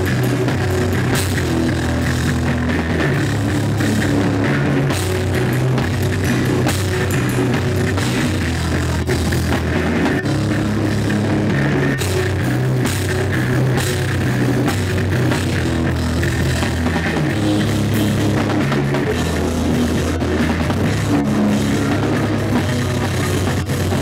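Heavy rock band playing loud live: fast, dense drumming on a full kit with crashing cymbals, over sustained guitar and bass.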